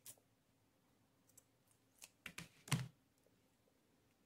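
Faint clicks and taps of a pair of scissors being handled and laid down on a table: one click at the start, then a quick cluster of clicks about two seconds in, the loudest a knock near three seconds.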